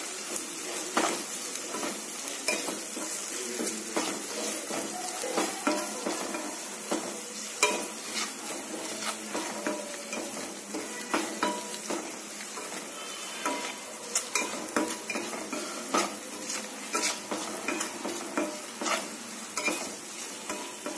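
Sliced onions and spices frying in oil in a kadai with a steady sizzle, while a spatula stirs them with frequent, irregular clicks and scrapes against the pan.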